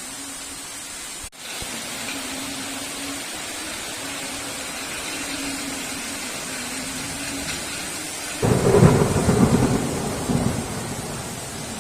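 Heavy rain falling steadily, briefly cutting out about a second in. About eight seconds in, a sudden loud thunderclap breaks in and rumbles away over the next two or three seconds.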